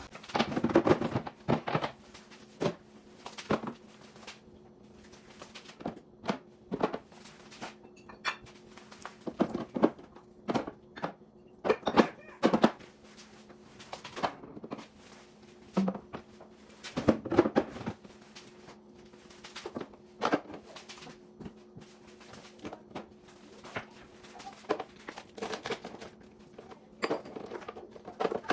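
Bottles, jars and containers being set down on refrigerator shelves and in the door bins: irregular knocks and clinks, about one or two a second, over a faint steady hum.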